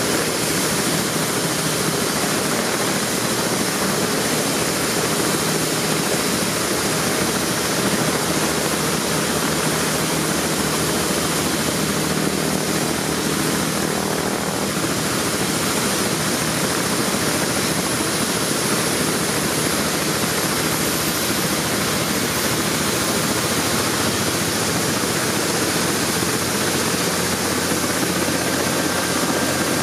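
BK 117 helicopter's twin turboshaft engines and turning main rotor running steadily on the ground before lift-off: a steady rush of turbine and rotor noise. A faint high whine slowly climbs in pitch partway through.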